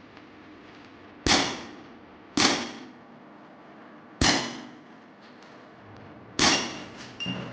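Rossi 708S airgun revolver firing four shots at uneven intervals, each a sharp crack with a short ringing decay. A softer ringing knock follows shortly after the last shot.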